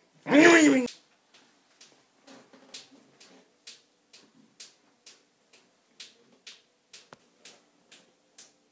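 A cat meows once, a short call that rises and falls in pitch. A steady ticking follows, about two ticks a second.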